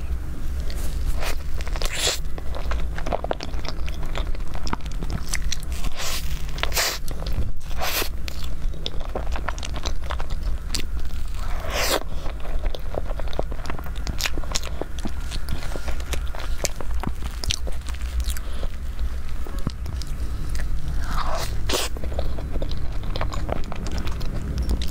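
Close-miked eating of layered crêpe cake with cream filling: soft bites, chewing and sticky, wet mouth clicks and smacks, irregular throughout, over a steady low hum.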